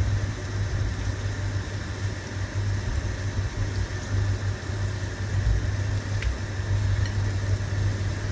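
A steady low hum, engine-like, over the faint simmer of coconut-milk gravy in a wok as fried fish pieces are laid into it, with a couple of faint light clicks.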